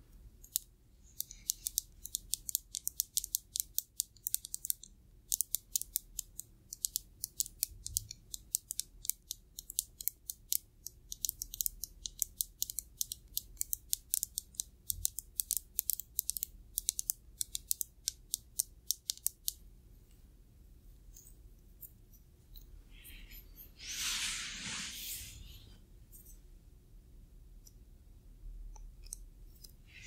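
Long fingernails tapping rapidly on an aluminium lotion bottle, a quick run of crisp clicks with a short pause about five seconds in, stopping a little before the halfway point of the clip. A few seconds later comes a louder rustling noise lasting about two seconds.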